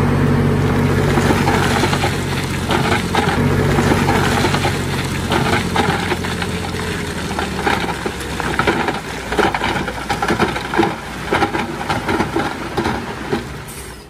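Komatsu D20A bulldozer's diesel engine running steadily under load, with irregular crunching and clattering that grows denser from about halfway through, as soil is pushed.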